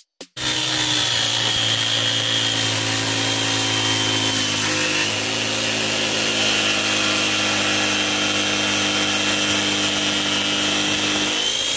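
Rotorazer 400 W mini circular saw with a diamond blade cutting dry through a ceramic tile: the motor runs steadily with a high whine under the noise of the cut, starting abruptly about half a second in.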